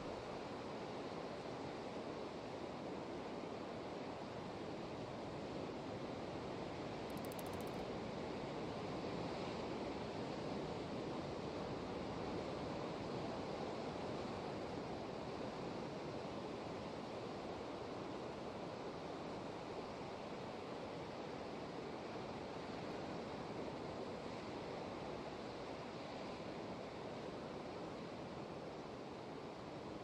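Distant ocean surf breaking over rocks below a cliff: a steady, unbroken wash of waves.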